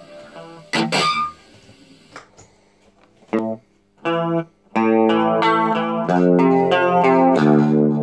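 Electric guitar played through an effects box: a few short, separate chord stabs, then from about five seconds in a run of sustained, ringing chords.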